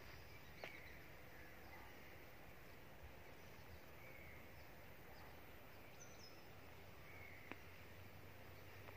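Near silence: faint outdoor ambience with a few faint bird calls and a couple of small clicks.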